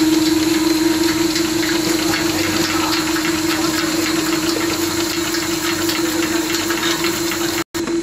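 Triple-layer detergent tablet press running: a steady machine hum with a fast patter of small clicks over it. The sound cuts out for a split second near the end.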